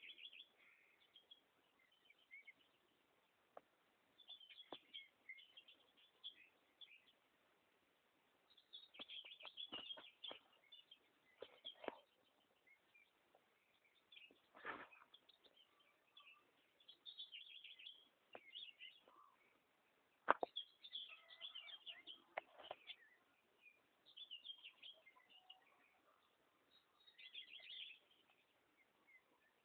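Faint birdsong: small birds chirping in short high bursts every few seconds, with a few sharp clicks, the loudest about two-thirds of the way through.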